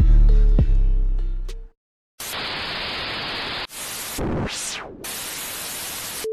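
Electronic outro music with a heavy bass line that stops short, then, after a brief silence, a burst of static-like white noise with a sweeping tone through it near the middle.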